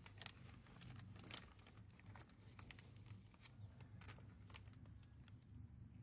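Faint, scattered crackles of a clear plastic freezer bag being eased over a hornet nest, over a low steady hum.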